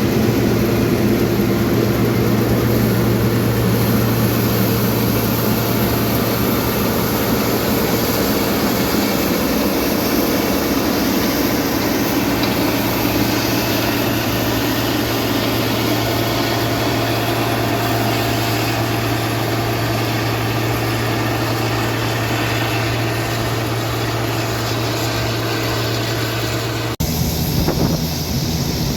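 Heavy diesel farm machinery running at a steady pitch with a strong low hum. The sound cuts off abruptly near the end and a different engine sound with wind follows.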